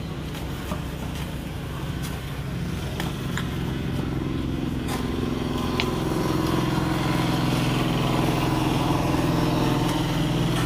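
A passing road vehicle's engine running steadily and growing louder from about four seconds in, with a few short scrapes and knocks of steel shovels working wet concrete in the first half.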